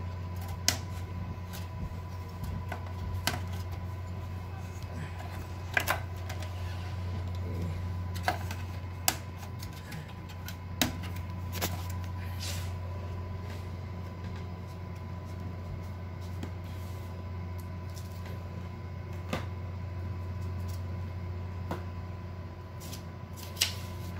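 Scattered clicks and knocks of parts being handled and taken out inside an open desktop PC case, about ten sharp ones spread irregularly, over a steady low electrical hum.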